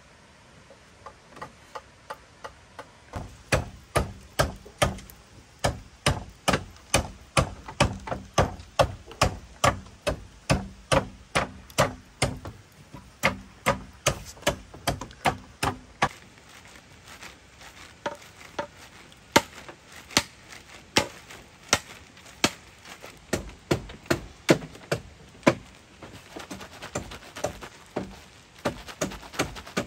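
Repeated chopping strokes, about two to three sharp strikes a second, pausing and thinning out about halfway through, then resuming and ending in lighter, quicker taps.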